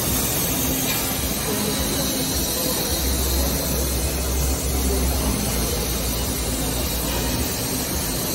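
3000 W laser cutter cutting 12 mm steel plate: a steady hiss from the gas jet at the cutting head, over a low machine hum that swells for a couple of seconds midway.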